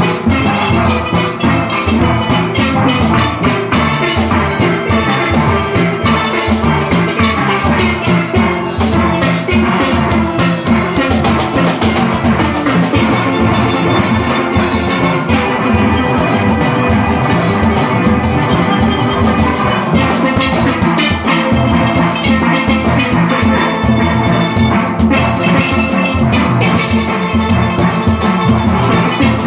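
A steel orchestra playing live: chrome steelpans carry the melody and chords over the low notes of bass pans, with drums keeping a steady beat.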